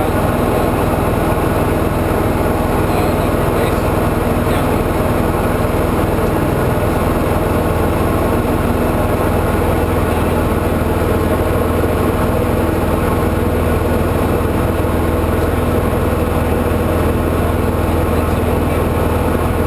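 Diamond DA40CS light aircraft in flight, heard from inside the cockpit: its four-cylinder Lycoming engine and constant-speed propeller running steadily at cruise-climb power.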